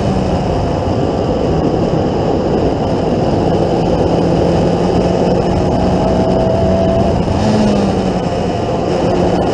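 Onboard sound of a Formula Ford 1600 race car at speed: the engine running hard and steady under heavy wind rush, with a brief rise and dip in engine pitch about three-quarters of the way through.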